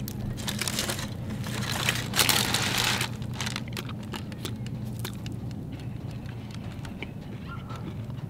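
A person chewing a mouthful of chicken parmesan sandwich, with many small crunches and mouth clicks, over a steady low hum. A brief rush of noise about two seconds in is the loudest sound.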